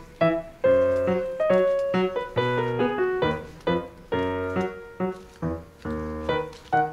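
Background music: a piano playing a light, bouncy tune of chords over bass notes.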